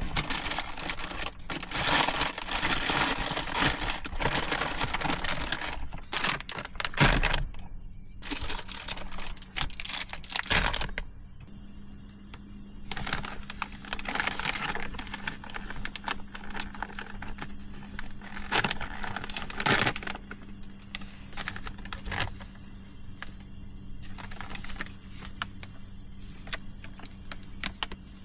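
Close crinkling and rustling of material being handled, with small clicks, continuous for about ten seconds, then in scattered bouts. About eleven seconds in, a faint steady hum with a thin high whine starts and stays underneath.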